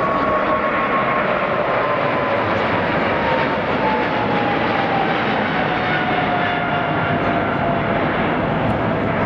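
Jet airliner's engines running loudly, a steady rush with a whine that falls slowly in pitch.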